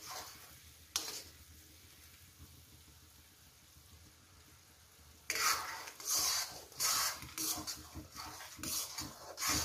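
Steel spoon in boiling sugar syrup in an iron kadhai: a single clink about a second in, then faint bubbling, then from about halfway a run of scraping stirring strokes against the pan, a little more than one a second.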